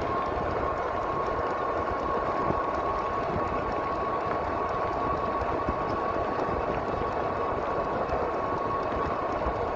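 Riding noise from a pedal-assist e-bike at steady speed: wind buffeting the handlebar-mounted microphone and tyres on asphalt, with a steady high whine from the bike's electric motor.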